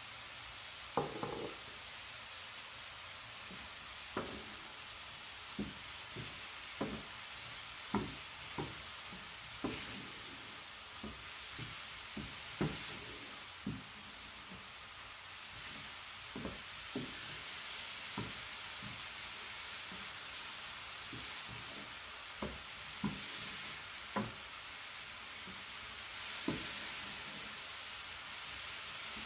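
Button mushrooms sizzling in a frying pan, with a steady hiss, while a wooden spatula stirs them, knocking and scraping against the pan at irregular moments.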